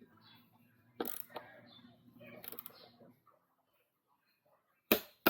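Ratcheting and clicking of a click-type torque wrench working a bicycle crank arm's pinch bolts, with metal tool clicks. The sound drops out about three seconds in, then a single sharp click comes near the end.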